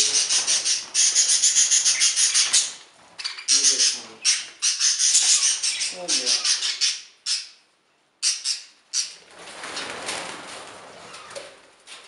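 A flock of budgerigars chattering in rapid high chirps, with wings fluttering. The chatter comes in bursts and stops briefly a little after halfway, then gives way to a softer rustle near the end.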